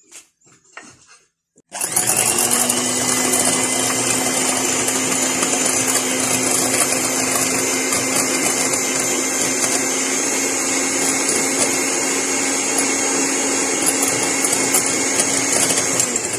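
Electric mixer beating egg whites, starting about two seconds in, rising slightly in pitch as it comes up to speed, then running steadily until it stops just before the end. The whites are being whipped to a loose, soapy foam, the first stage of a meringue.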